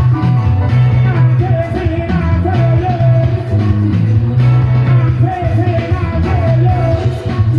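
Upbeat music with a steady bass and a singing voice.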